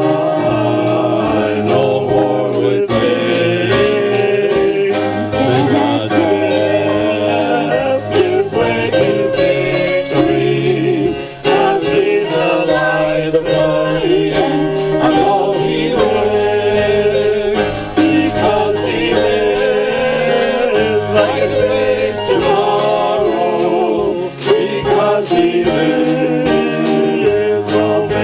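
A worship song: voices singing with instrumental accompaniment and a steady beat.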